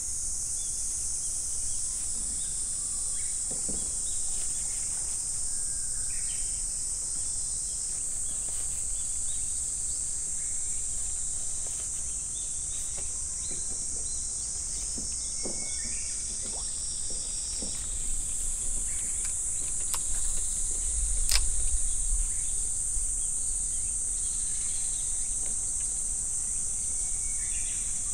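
Steady high-pitched chorus of summer insects. One sharp click with a low knock comes about three-quarters of the way through.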